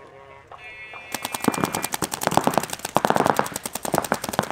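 Paintball markers firing rapid strings of shots, starting suddenly about a second in and going on without a break. A brief high steady tone sounds just before the shooting begins.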